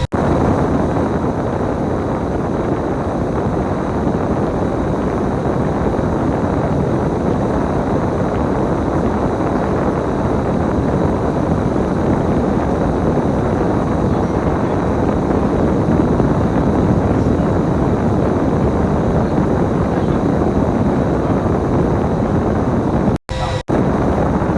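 Steady, loud running noise of a bus, with two brief dropouts in the sound near the end.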